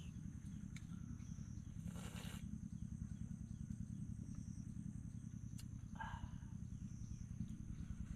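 Forest ambience: insects chirring in a steady high-pitched drone over a low, steady rumble, with a brief rustle about two seconds in and a short animal call about six seconds in.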